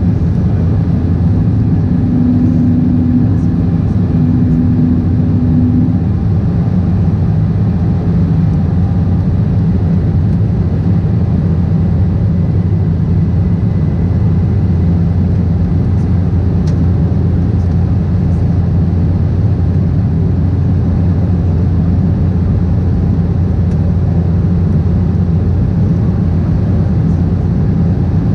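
Steady cabin roar inside an Embraer 190 climbing after take-off: the low drone of its GE CF34 turbofans and the rush of air past the fuselage, heard from a window seat. A slightly stronger hum rides on it for a few seconds near the start.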